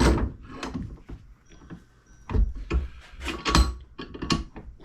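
Handling noise: a series of knocks and clunks, with some scraping, as things are picked up and set down on a work surface. The loudest knocks come a little after two seconds in and again at about three and a half seconds.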